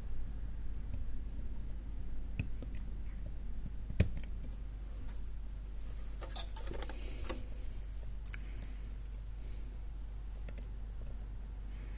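Steel picks scraping and clicking inside an old Hobbs four-lever lever lock as the levers are worked against strong springs: scattered small clicks, a sharper click about four seconds in, and a longer scraping rattle around seven seconds, over a steady low hum.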